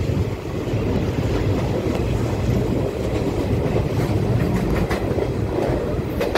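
Indian Railways passenger coach rolling along the track, heard from its open doorway: a steady rumble of wheels on rail, with clickety-clack over rail joints. The clacks come sharper and closer together near the end.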